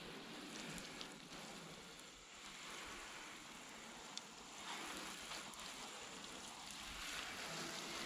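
Faint, steady road and wind hiss of a car on the move, heard from inside the cabin, with a couple of light clicks.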